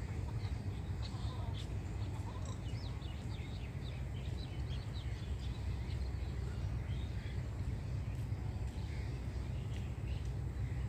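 Rural outdoor ambience: birds chirping in many short, quick calls over a steady low rumble.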